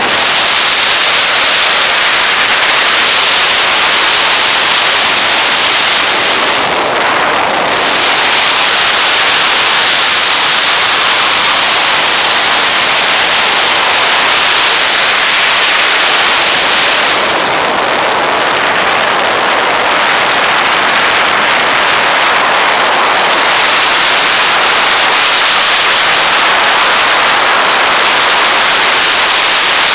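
Loud, steady wind rush over the microphone of a camera on a motorcycle riding at road speed, easing briefly about seven seconds in.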